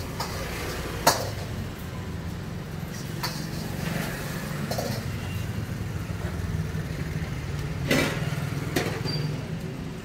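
Street traffic with a motor vehicle engine running steadily nearby, broken by a few sharp knocks or clicks. The loudest knock comes about a second in.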